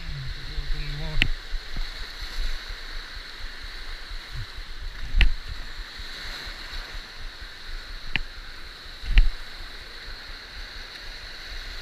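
Surf washing and rushing over a shallow coral-reef shoreline in a steady wash of water. A few sharp clicks and knocks cut through it, the loudest about five and nine seconds in.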